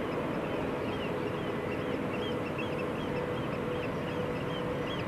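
Outdoor ambience: birds giving short chirps about three times a second over a steady low hum and background noise.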